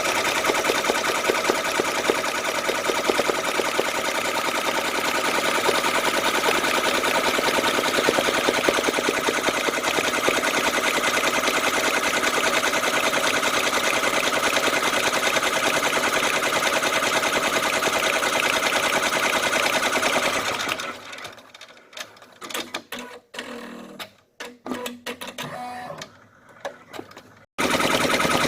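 Brother computerized embroidery machine stitching at speed, a rapid steady mechanical chatter. About 21 seconds in the stitching stops, leaving a few faint clicks for several seconds, then it starts up again near the end.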